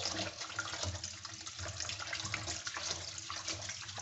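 Tap water running into a plastic basin while a hand squeezes and swishes a dirty canister-filter foam pad under the water, with small irregular splashes.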